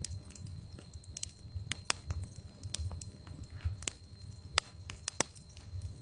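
Wood fire crackling in a fireplace: irregular sharp pops and snaps over the low rumble of the burning logs, with the loudest pops coming about four and a half and five seconds in.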